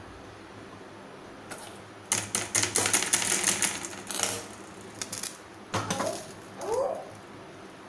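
Oil-coated brinjal skin crackling and spitting over a gas burner flame: a rapid run of sharp crackles starting about two seconds in and lasting a couple of seconds, then a few scattered pops.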